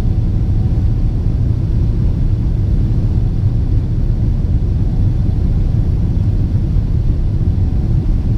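Steady low rumble inside the cabin of a Boeing 777-300ER near the wing, from its GE90 engines and the airflow, with no breaks or bumps.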